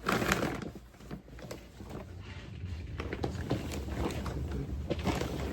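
Handling noise of a bag being rummaged through: a burst of rustling at the start, then scattered small rustles and knocks over a low steady rumble.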